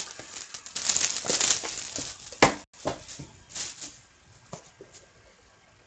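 Packaging of a Panini Dominion hockey card box rustling as the box is opened by hand, with one sharp click about two and a half seconds in and a few lighter clicks after it, then only faint handling.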